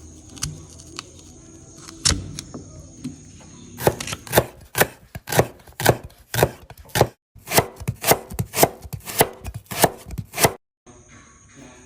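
Knife chopping food on a cutting board: a run of sharp knocks at about three strokes a second, starting about four seconds in, stopping twice for a moment and ending shortly before the end.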